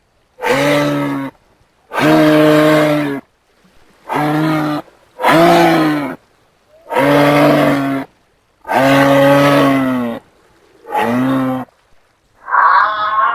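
Giraffe calling: seven short, low, moo-like bellows in a row, each about a second long with brief pauses between them. Near the end a higher, wavering sound takes over.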